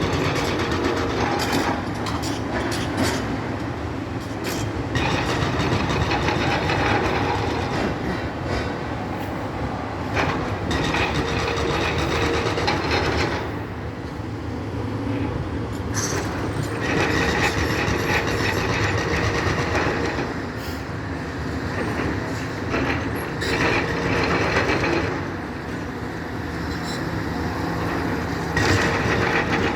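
Demolition excavator with crusher jaws running and biting through a building's walls: a steady engine and hydraulic drone under irregular crunching and clattering of breaking masonry and falling rubble.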